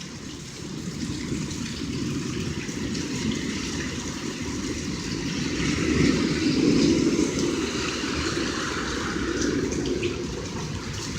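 Steady rain mixed with small hail coming down, swelling louder about six seconds in and then easing slightly.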